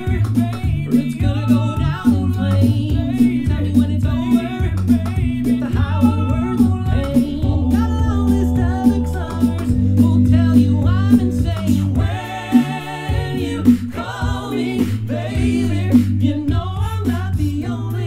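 A five-man a cappella group singing a country-pop medley, with a deep bass voice holding the low line and beatboxed vocal percussion keeping a steady beat.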